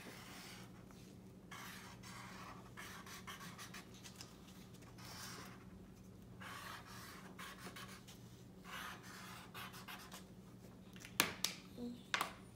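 Faint, irregular scratching and rubbing of a felt-tip marker and a glue stick on construction paper, with two sharp clicks near the end.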